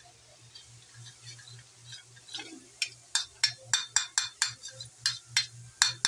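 Metal spoon tapping on a perforated slotted ladle (jhara), pushing gram-flour batter through into hot oil to form boondi. The taps start about three seconds in and come roughly three a second, with faint frying oil beneath.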